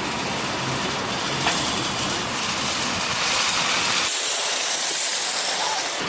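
Steady loud rushing hiss of road and wind noise, with one brief knock about a second and a half in.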